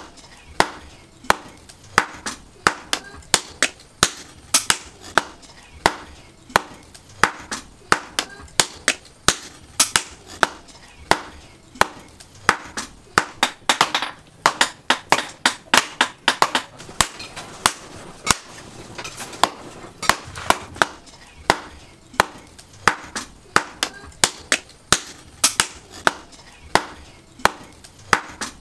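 Hammer blows on red-hot steel over a steel anvil: a knife blank being hand-forged, struck steadily at about two blows a second.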